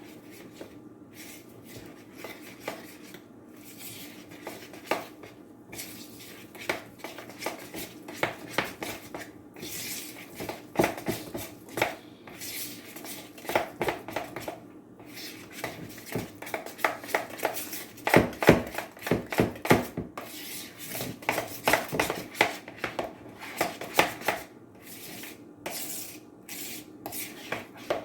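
A spoon or similar utensil clinking and scraping against a mixing bowl while stirring pancake batter, in quick uneven strokes that come in bursts, busiest in the second half.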